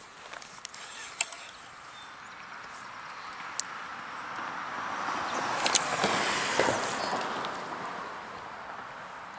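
A vehicle passing on a road bridge: a swell of tyre and road noise that builds for a few seconds, peaks about six seconds in, then fades. A few sharp clicks sound along the way.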